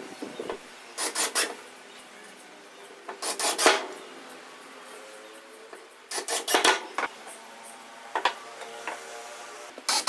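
Wood being rasped or scraped by hand, in several short bursts of quick strokes with pauses between them.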